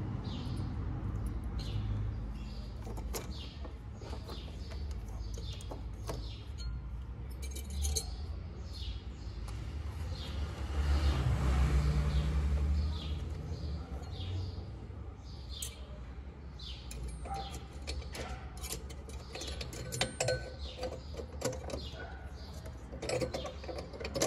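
Small clinks and clicks of hands handling a halogen headlight bulb and fitting it into a car's headlight housing, with birds chirping in the background. A low rumble swells briefly about halfway through, and the clicks get sharper near the end.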